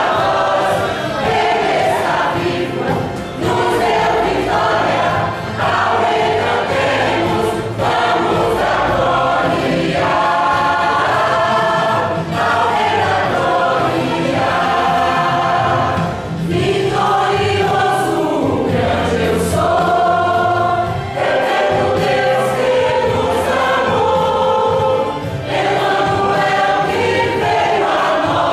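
A church choir singing a gospel song in several parts, with instrumental accompaniment and a steady beat.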